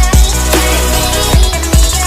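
Electronic dance background music with heavy bass and a steady drum beat.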